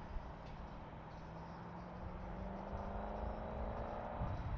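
A vehicle's engine running, its tone slowly rising in pitch and cutting off about four seconds in, over a low rumble that grows louder near the end.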